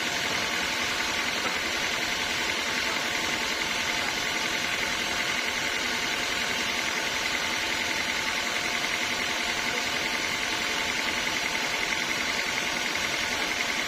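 Sawmill machinery running steadily: a constant mechanical drone with a steady high whine.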